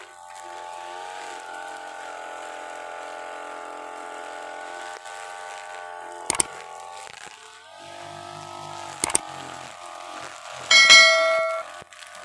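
Brush cutter engine running steadily while its 3 mm nylon trimmer line cuts grass down to the soil. Two sharp clicks come partway through, and near the end a loud ringing metallic clang sounds once and dies away within about a second.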